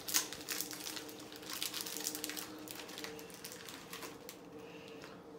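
Candy wrapper crinkling and crackling in quick, irregular bursts as a peanut butter cup is unwrapped by hand, dying away near the end. A faint steady hum runs underneath.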